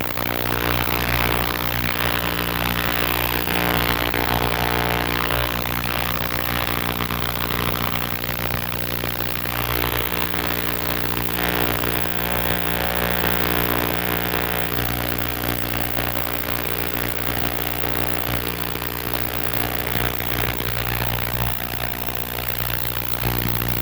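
Ultrasonic cleaner running with a carburetor main jet in its tank, a steady hum with a hiss over it, as it cleans out the jet's hidden blockage.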